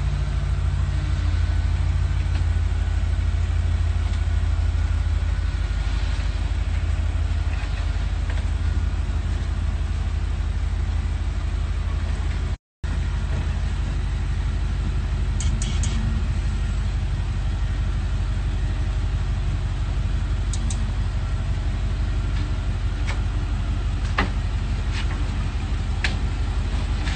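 Classic Chevrolet Impala's engine idling with a steady deep rumble as the car backs slowly down a trailer ramp. The sound cuts out for a moment about halfway, and a few faint clicks come in the second half.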